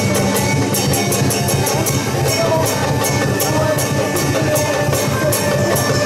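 Music with drums and percussion keeping a steady beat, with sharp high strikes several times a second over a continuous pitched backing.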